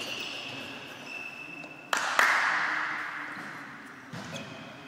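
A volleyball struck twice in quick succession about two seconds in, each hit a sharp smack that echoes around the sports hall. A faint high steady tone, like a whistle, sounds at the start and again near the end.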